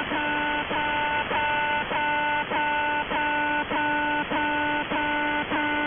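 Shortwave radio signal of the Russian military station 'The Alarm' on 4770 kHz USB: its buzzing alarm-like channel marker, a pitched tone that repeats about every 0.6 seconds, each pulse opening with a quick downward slide, with band noise underneath.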